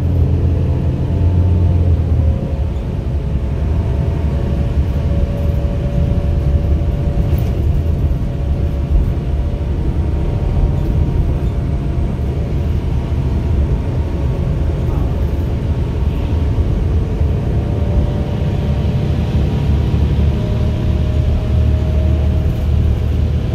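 Inside a 2010 New Flyer D35LFR city bus under way: a steady low engine and road rumble, with faint drivetrain whines that drift slowly up and down in pitch.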